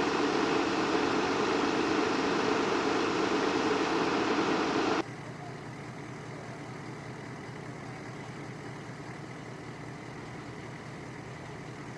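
Heavy truck engine idling steadily. About five seconds in it cuts off abruptly to a quieter, steady low engine hum.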